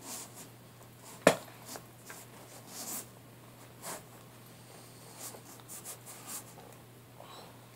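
Damp towel rubbing over a tall leather riding boot to wipe the mud off, in short, uneven strokes. A single sharp knock about a second in is the loudest sound.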